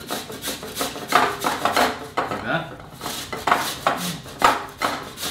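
Raw potato being grated by hand on a stainless steel box grater: a quick run of rasping strokes, roughly two or three a second.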